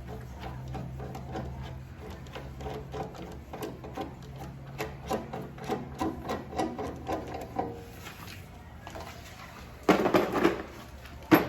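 Hand rivet nut (nutsert) tool being worked in metal: a run of light clicks, a few a second, over a low steady hum, then two loud knocks near the end.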